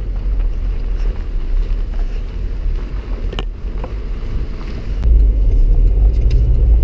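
Wind buffeting the microphone as a gusty low rumble, growing louder about five seconds in, with a single sharp click partway through.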